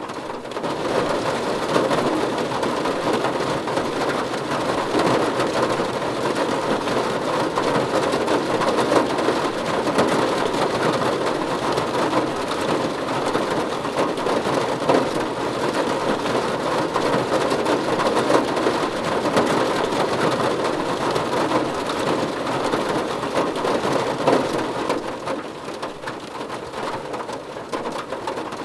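Steady heavy rain falling on a surface, a dense patter of many drops that eases slightly near the end.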